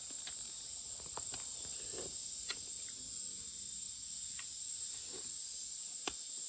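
Steady high-pitched insect chorus, crickets trilling without a break, with a handful of sharp clicks and snaps scattered through it, the loudest about two and a half seconds in and near the end.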